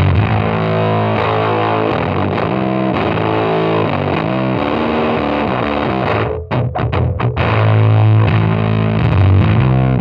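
Electric bass played through a Fuzzrocious Heliotropic fuzz pedal: heavy, distorted sustained bass notes and riffs, with a few short stop-start chops about two-thirds of the way through.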